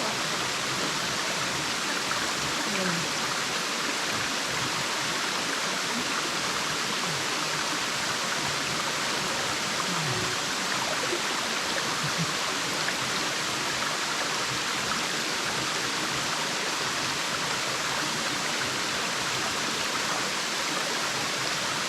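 Small waterfall pouring steadily: a constant, even rush of falling water.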